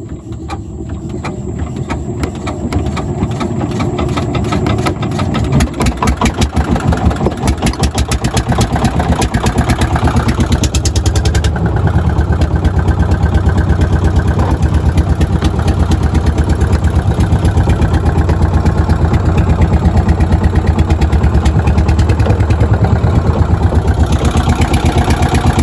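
A small engine running close by, its firing pulses quickening and growing louder over the first several seconds as it picks up speed, then running steadily at that speed.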